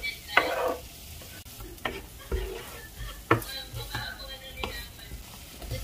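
Diced onion scraped off a wooden cutting board into hot oil and garlic in a frying pan, sizzling, then stirred with a spatula. The spatula knocks against the pan a few times.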